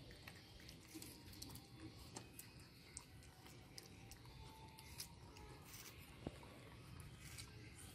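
Baby macaques chewing and biting into fruit: faint, irregular wet clicks of chewing, with one sharper click a little after six seconds.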